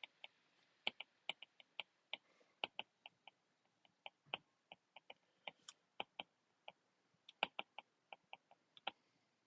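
Faint, irregular clicking of keys on a computer keyboard, about two or three clicks a second.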